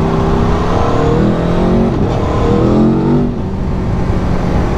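Motorcycle engine revving, its pitch rising and then falling, over a steady rushing noise.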